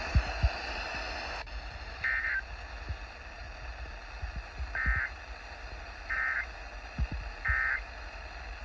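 Emergency Alert System end-of-message data bursts: four short warbling digital chirps, the last three about 1.3 seconds apart, over a hissy broadcast hum. Dull low thumps recur underneath.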